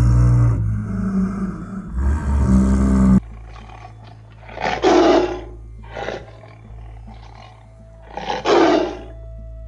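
Music plays for the first few seconds, then a big cat roars twice, about two seconds into the recording and again near the end, with a few shorter, weaker calls in between.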